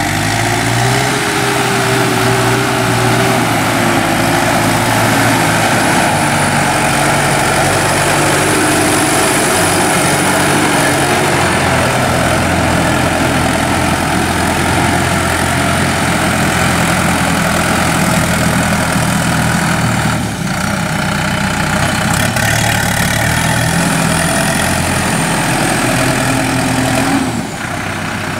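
CLAAS Talos 240 tractor's 95 hp diesel engine running steadily as the tractor drives across a field. Its pitch rises briefly at the start, and the sound dips about twenty seconds in and again near the end.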